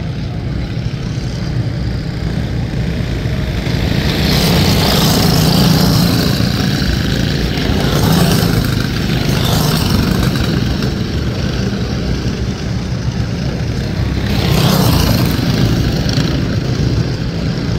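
Several racing go-kart engines running, swelling louder for several seconds a few seconds in and again briefly near the end as the karts get going.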